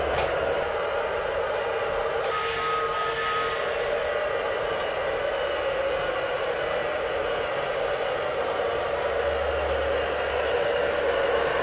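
Battery-powered G scale remote-controlled toy train running on its track: steady motor and wheel noise, with a short high squeak repeating about twice a second that the owner puts down to a squeaky wheel.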